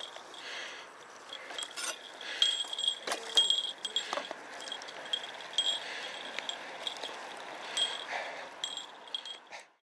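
Road bicycle coasting and slowing: freewheel ticking, with short high squeaks and clicks over road and wind noise.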